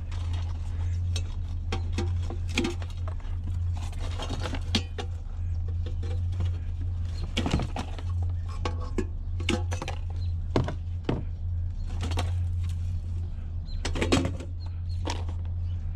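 Scrap metal being handled and cut: scattered metallic clinks and knocks at irregular intervals, over a steady low hum.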